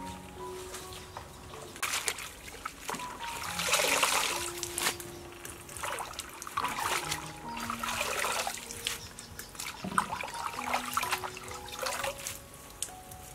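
Water splashing and trickling as leafy greens are washed by hand in a bowl of water, in uneven bursts, loudest about four seconds in. Soft background music plays underneath.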